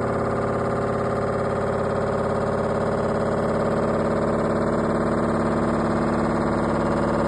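LG front-load washing machine in its spin cycle: the drum and motor give a steady, heavy hum with a many-toned whine over it, rising slightly in pitch and loudness.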